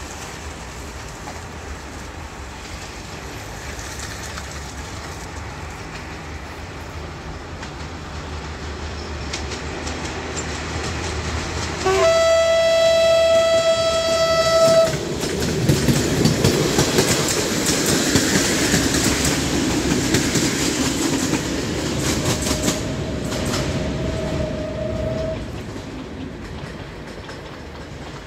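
LDH diesel-hydraulic locomotive hauling a passenger train approaches with its engine growing louder. About halfway through it sounds one steady horn blast lasting about three seconds, then passes with its engine running and the wheels clicking over the rail joints. The sound fades near the end.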